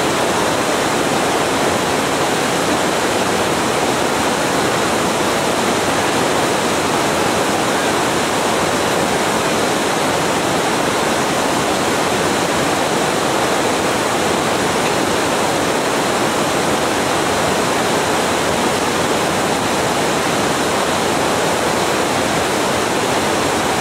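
Steady, even rush of fast-flowing river water, with no breaks or changes.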